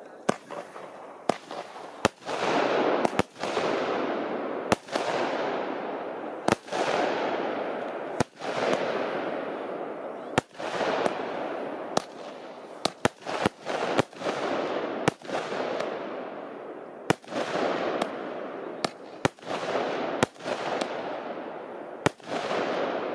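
Fireworks going off in quick succession: sharp bangs about once a second, most followed by a hissing crackle that fades away.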